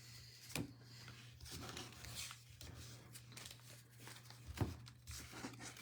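Faint rustling and light clicks of trading cards and their packaging being handled, with one sharper click about four and a half seconds in, over a steady low hum.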